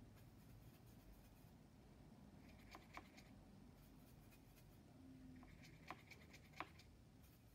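Faint scrubbing and a few light taps of a paintbrush against a plastic watercolour palette and a pan paint tin, with small sharp clicks around the middle and near the end.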